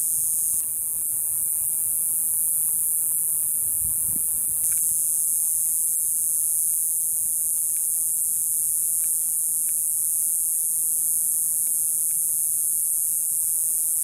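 Cicada singing: a steady, high-pitched buzz that drops a little about half a second in and comes back up about four and a half seconds in.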